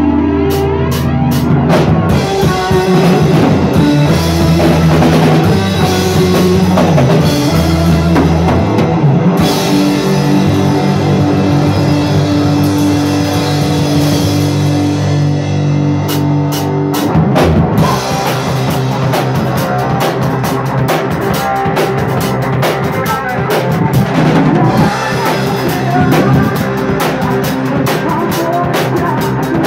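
Rock band playing live in a small rehearsal room: a drum kit with cymbals driving a steady beat under held electric guitar and bass chords. The cymbals drop out briefly twice.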